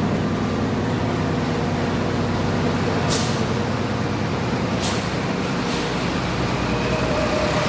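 A coach's diesel engine running steadily at low revs, with three short hisses of air from its air brakes about three, five and six seconds in.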